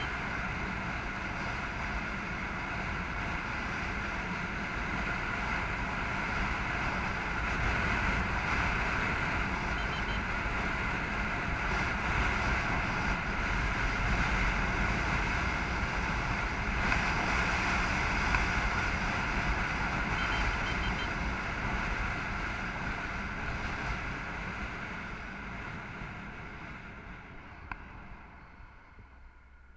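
Steady wind and road noise of a vehicle driving along a paved road, with a low rumble and wind buffeting the microphone, fading out over the last few seconds.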